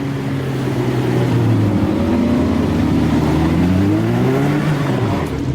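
Car engine revving loudly, holding a fairly steady pitch and then climbing in pitch about four seconds in.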